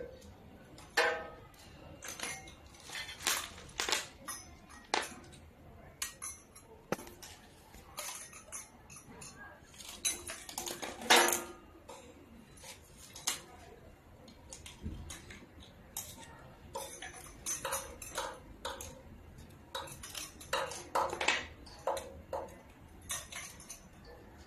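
Small metal candle-sleeve lamp holders and fittings clinking against each other and the metal channel as they are handled, in irregular sharp clinks, the loudest a little under halfway through.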